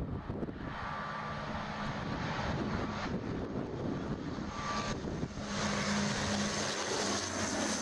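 ATR twin-turboprop airliner passing low overhead on approach: a steady propeller drone with a high turbine whine, growing louder and at its loudest in the last couple of seconds, the whine dipping slightly in pitch near the end.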